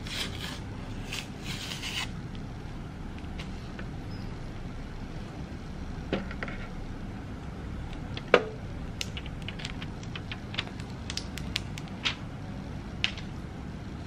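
Protective plastic film being peeled off a robot vacuum's charging dock, rustling and crackling in the first couple of seconds. Scattered light clicks and taps of the plastic dock being handled follow, with one sharper tap about eight seconds in, over a steady low hum.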